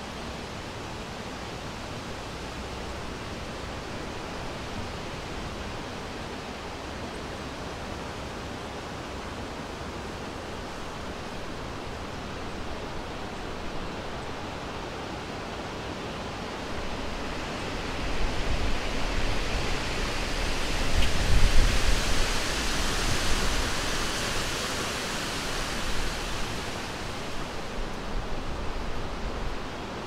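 Summer wind blowing through forest trees, a steady rustling hiss. About halfway through it swells into a stronger gust with a low rumble, peaking a few seconds later and then easing off.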